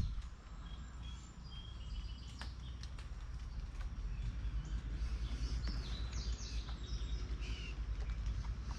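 Small wild birds chirping and calling: many short, scattered chirps, some in quick runs, over a steady low rumble.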